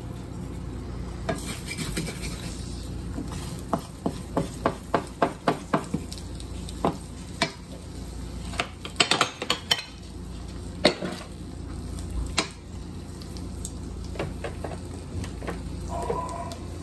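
Food sizzling in a frying pan while a utensil stirs and knocks against the pan: a run of quick, evenly spaced clicks a few seconds in, then a busier cluster of clinks and a few single louder knocks around the middle.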